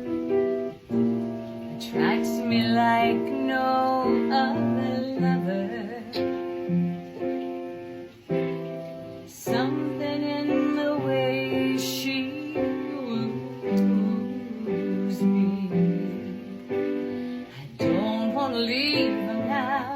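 A song performed live with piano or keyboard accompaniment: held chords under a sung melody that comes in about two seconds in and returns near the end.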